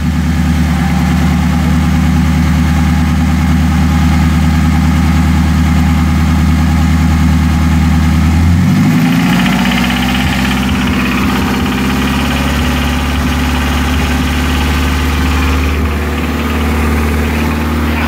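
Nissan 240SX's four-cylinder engine running, heard from underneath at the oil pan, with a knock that the owner takes for rod knock from worn rod bearings; chain slap from the timing chain is the other suspect. The revs rise a little and are held about halfway through, then ease back near the end.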